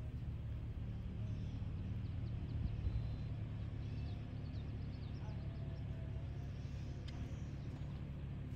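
Steady low wind rumble on the microphone, with faint bird chirps scattered through it.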